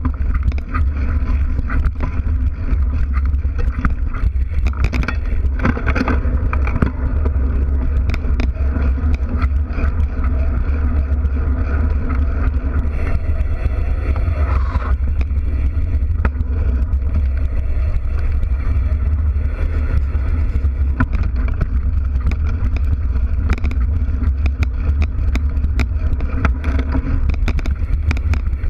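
Mountain bike ridden over dirt singletrack and brick paving, heard from a camera mounted by the rear wheel. There is a constant heavy low rumble of wind and vibration, with tyre noise and frequent small rattles and knocks as the bike goes over bumps.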